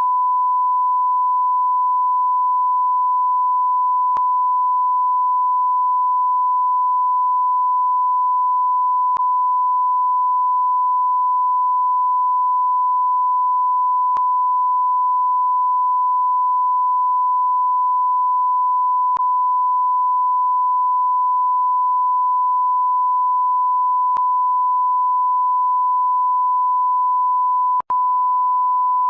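Continuous 1 kHz sine-wave bleep tone, the standard censor bleep, held at one steady pitch with faint clicks about every five seconds. It breaks off for an instant near the end, then carries on.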